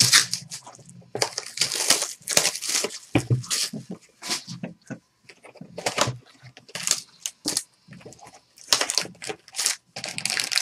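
Plastic shrink wrap being torn and crinkled off a box of trading cards, in many short rips. The cardboard box is opened near the end.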